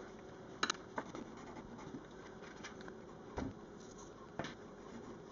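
A few light knocks and clicks, about four in all, as drawing pencils are picked up and set down on the table, over a faint steady hum.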